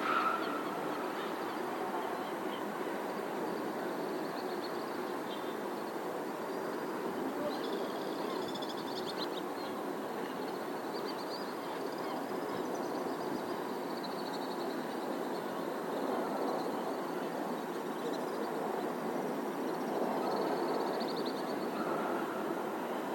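Steady hum of distant city traffic, with faint bird calls now and then over it.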